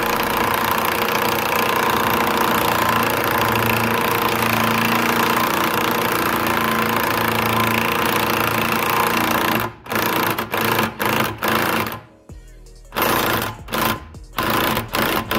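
Impact wrench hammering on the forcing screw of a bush extractor tool, drawing a new trailing arm bush into the rear axle of a Ford Fiesta. It runs continuously for about ten seconds, then breaks into short bursts with brief pauses as the bush is pulled fully home.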